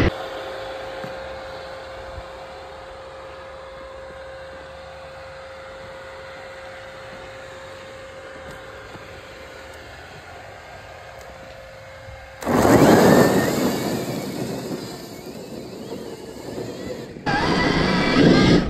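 Stark Varg electric dirt bike being ridden: a quieter stretch with a faint steady hum, then loud riding noise starting suddenly about twelve seconds in and dying away over a few seconds, and another loud stretch near the end.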